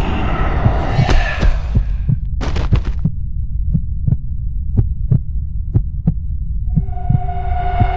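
Dramatic film score: a low throbbing drone with a heartbeat-like double thump about once a second, a quick run of sharp clicks about two and a half seconds in, and a sustained high tone coming in near the end.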